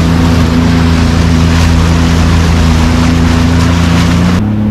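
Jet ski engine running at a steady speed, with a hiss of rushing water and wind over it. Near the end the hiss cuts off suddenly and the engine note shifts.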